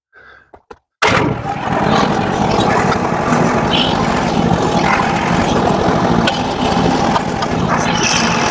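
Engine running steadily at working speed, cutting in abruptly at full loudness about a second in after near silence.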